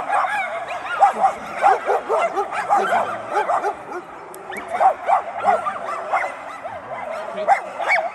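Giant Schnauzer working dog giving a rapid string of high-pitched yips and whines, several a second, with some louder yelps among them.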